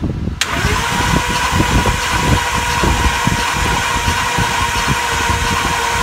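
Ford 6.2-litre V8 cranking on the starter for a compression test, starting suddenly about half a second in, with a steady starter whine and a fast, even chugging of compression strokes. The gauge is on cylinder two, which turns out to be a dead cylinder with no compression, traced to a broken exhaust valve spring.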